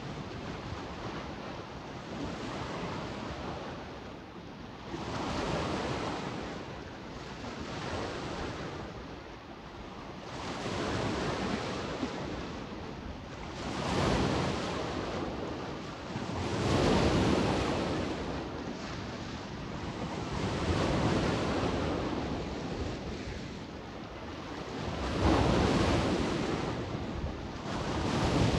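Adriatic sea waves washing onto the shore, each wash swelling and ebbing about every three seconds, with a few stronger ones. Wind blows across the microphone.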